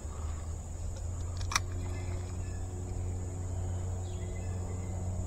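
Spinning reel being cranked during a lure retrieve, a steady whir from about two seconds in, with one sharp click about a second and a half in. A constant high insect trill runs underneath.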